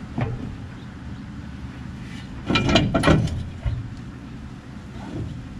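Metal clanking and scraping from hands-on work inside a golf cart's engine bay: a single knock just after the start, then a loud cluster of clanks and scrapes about two and a half to three seconds in, over a steady low hum.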